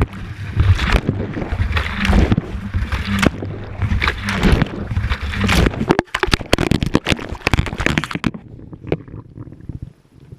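Wash water sloshing and churning in a Whirlpool washing machine drum, heard from a GoPro inside it, with thumps and knocks as the laundry and camera tumble. About six seconds in the churning stops suddenly, giving way to a quick run of sharp knocks and clatter that dies away about two seconds later, leaving it nearly quiet.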